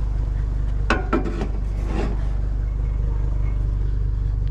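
Vehicle engine idling with a steady low hum, with two sharp knocks about a second in and a softer one a moment later.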